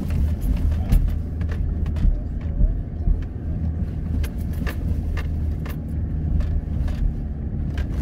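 Four-wheel-drive vehicle driving on a soft sand track, its engine a steady low rumble, with frequent short clicks and rattles from the vehicle jolting over the sand.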